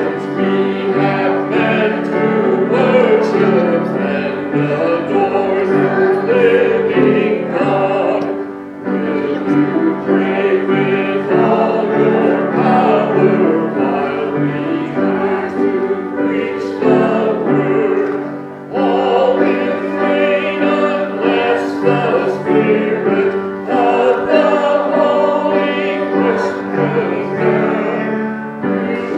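A group of voices singing a hymn together with piano accompaniment, in sustained phrases with short breaths between them.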